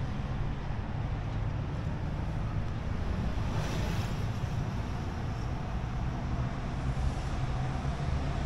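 Steady low rumble of city traffic, with an engine-like hum underneath and a brief louder hiss about three and a half seconds in.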